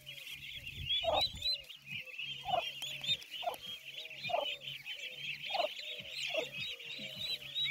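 A flock of week-old turkey poults peeping continuously in high, overlapping chirps. A lower clucking call repeats about once a second, from the turkey hen.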